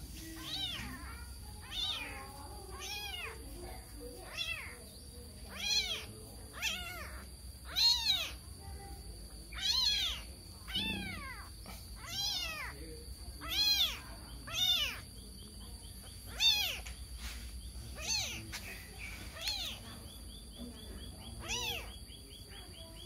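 A very young black kitten meows over and over, with high calls about once a second that each rise and fall in pitch. These are the distress calls of a kitten crying for its mother.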